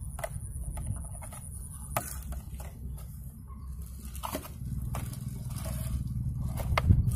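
Green plastic bottle of a homemade shrimp trap crackling and clicking in the hands as fishing line is tied onto it, scattered short clicks with the loudest near the end, over a steady low rumble.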